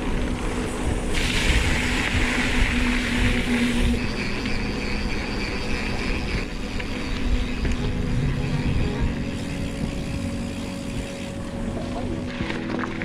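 Wind rumbling on the microphone and tyre noise from mountain bikes riding along, with a brighter hiss for a few seconds about a second in.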